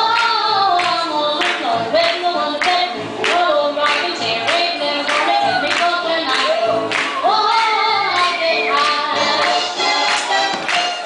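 Up-tempo dance music with a sung melody over a steady beat, about two beats a second.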